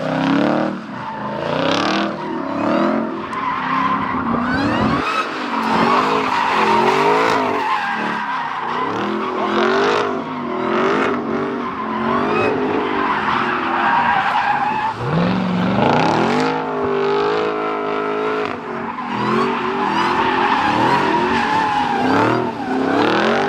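Dodge Hellcat Redeye's supercharged 6.2-litre HEMI V8 revving up and down hard during burnouts and doughnuts, with loud supercharger whine over tyre squeal. A little past halfway there is one long climbing rev.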